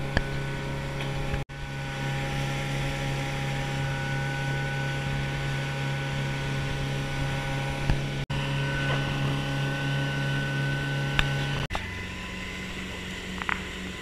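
Motorboat engine running steadily at speed, a constant low drone with a hum. It breaks off for an instant three times, and over the last couple of seconds it runs at a different, slightly higher pitch and a little quieter.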